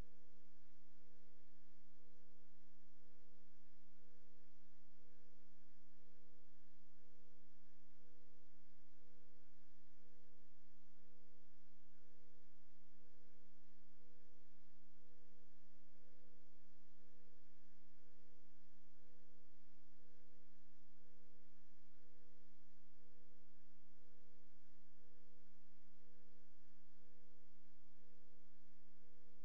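Steady electrical hum made of several fixed low tones, with a higher tone pulsing evenly on and off.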